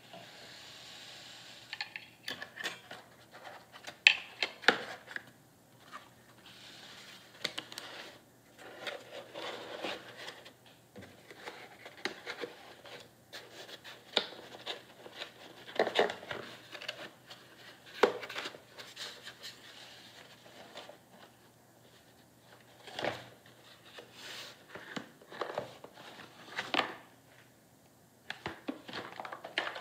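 Cardboard box being handled and turned over: irregular rubbing and scraping of cardboard with sharp knocks and clicks now and then, the loudest about four seconds in.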